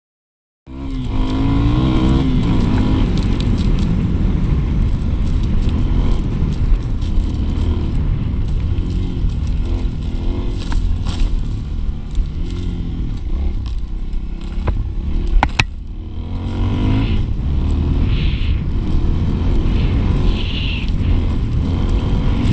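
Motorbike engine heard from onboard while riding across rough ground, its pitch rising and falling as the throttle opens and closes, over rumbling wind and ground noise. It starts abruptly under a second in, with a brief dip and a sharp click about two-thirds of the way through.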